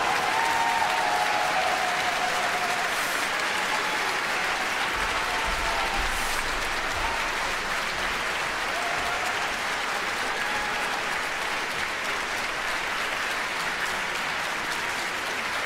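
Large audience applauding steadily, the clapping easing off slightly toward the end.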